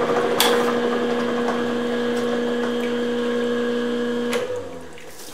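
Milling machine running a gear cutter through a metal gear blank, a steady hum that cuts off suddenly about four seconds in. A single sharp click comes just after the start.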